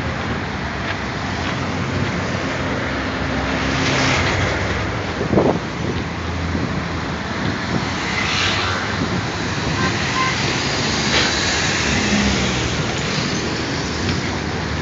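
Road traffic on a busy avenue: a steady rush of cars and buses passing close by, swelling as vehicles go past about four and eight seconds in. A short knock about five seconds in.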